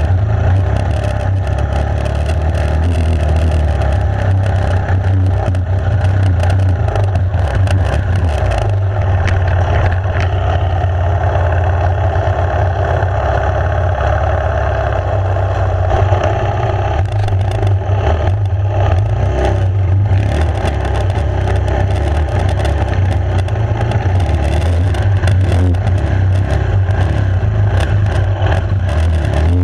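Enduro dirt bike engine running steadily under way on a rough trail, with scattered knocks and clatter in the second half.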